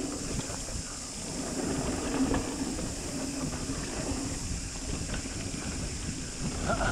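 Mountain bike rolling fast over a hard-packed dirt and gravel trail: steady tyre noise with small knocks and rattles from the bike, and a constant hiss of wind on the microphone.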